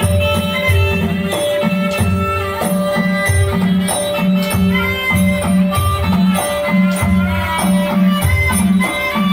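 A Thai luk thung dance song plays with a steady, bouncing bass beat about once a second, held melody tones and light rattling percussion.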